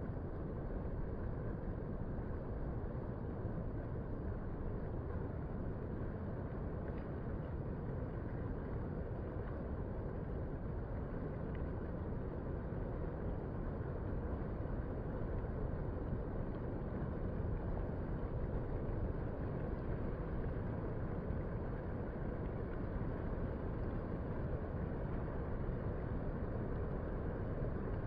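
Steady low roar of distant ocean surf, an even wash without separate wave crashes.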